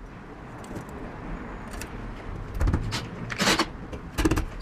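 12V cordless drill driving a screw through a perforated metal F47 hanger into the wall, in several short bursts in the second half, over a steady background noise.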